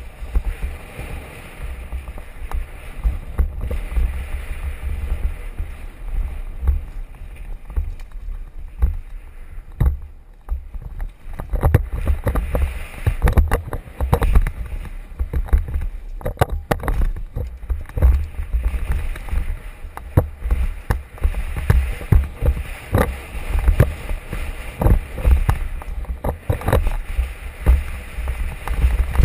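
Wind rumbling on a helmet-mounted camera's microphone during a fast downhill mountain-bike descent, with the bike rattling and knocking as it runs over a rough, rocky dirt track.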